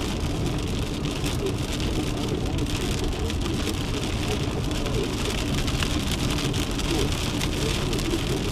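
Rain hitting a moving vehicle's roof and windows in many small ticks, over a steady low rumble of wind and road noise heard from inside the car.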